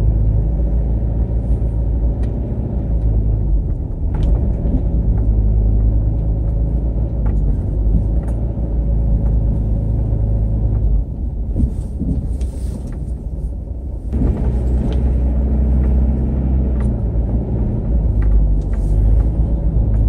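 Car engine and road rumble heard from inside the cabin while driving slowly: a steady low rumble that eases a little past halfway, then builds again about three seconds later.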